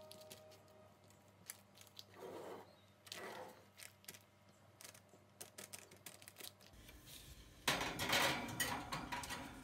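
Spatula scraping and pressing banana bread batter into a parchment-paper-lined metal loaf pan, with faint clicks and paper rustles. Near the end, a louder clatter and scrape as the loaf pan is slid onto the oven's wire rack.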